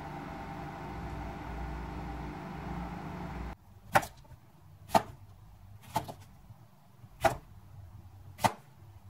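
A Sharp microwave oven running with a steady hum. About three and a half seconds in, the hum stops abruptly, and a chef's knife slices through a cucumber onto a cutting board: five sharp chops about a second apart.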